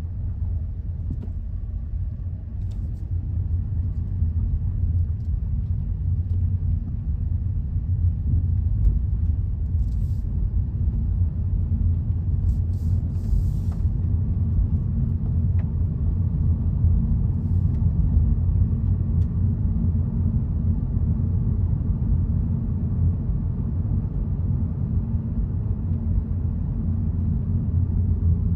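Hyundai Elantra CN7 driving over rough road: a steady low rumble with scattered faint knocks, the suspension knocking the owner complains of. There are a few short hissing bursts a little before and after the middle.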